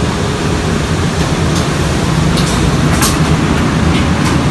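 Loud steady rumble of a ship's industrial laundry machinery and ventilation, with a few light clicks scattered through it.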